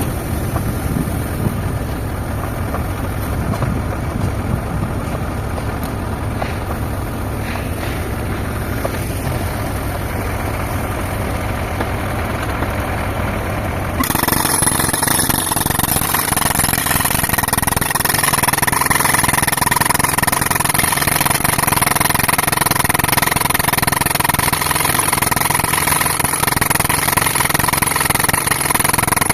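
Tractor engine running a tractor-mounted air compressor, a steady low drone. About halfway through it changes abruptly to a louder sound with a steady high whine on top.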